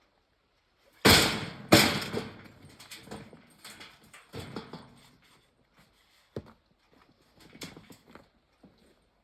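Two heavy thuds close together about a second in, each trailing off, followed by scattered lighter knocks and clicks at an uneven pace.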